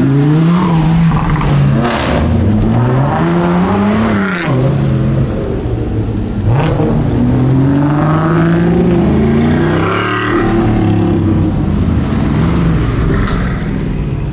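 Supercar engines accelerating away one after another, each pitch climbing and dropping back as it shifts gear, with a few sharp cracks among them.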